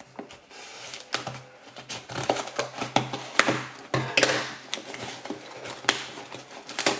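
A small cardboard box being opened: scissors cutting its packing tape, then the cardboard handled and its flaps pried open, an irregular run of scrapes, rustles and clicks with a few louder scrapes about halfway through.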